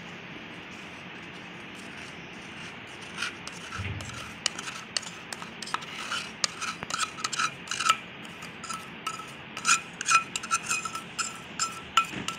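Spoon scraping and clinking against a mixing bowl as powdered sugar is spooned into melted butter: quick, irregular taps and scrapes, some with a short ring, starting about three seconds in over a steady low hiss.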